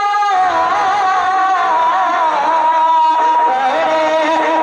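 A man singing an Urdu naat through a stage microphone, an ornamented melody with a long held note about halfway through. A steady held instrumental note stops just as the voice comes in.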